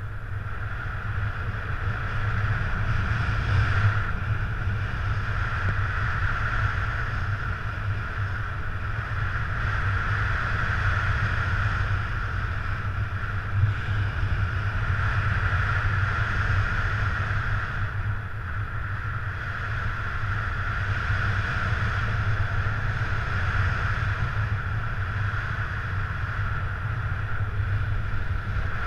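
Wind noise from the airflow over a paraglider pilot's camera microphone in flight: a steady rushing hiss over a low rumble, swelling and easing a little every few seconds.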